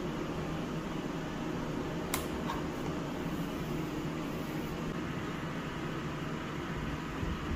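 Steady low hum and hiss of room background noise, with a sharp click about two seconds in and a fainter one just after.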